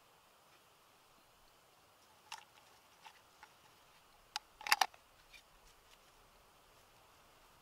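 Scattered light clicks and taps of handling a knife and a crusty bread loaf on a wooden cutting board, with a quick cluster of crisp clicks a little before five seconds in as the loudest sound; otherwise quiet.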